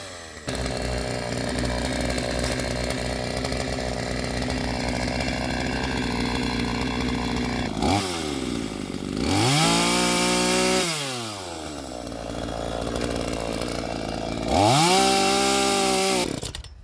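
Two-stroke chainsaw cutting into wood at a steady pitch, then revving up and dropping back twice before it stops near the end.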